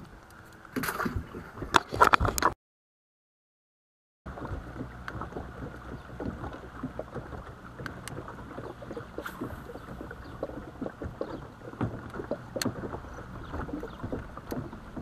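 Small waves lapping and slapping against a bass boat's hull, a steady splashy wash with many small clicks, with light wind on the microphone. A few sharp knocks in the first seconds, then the sound cuts out completely for about two seconds before the water noise resumes.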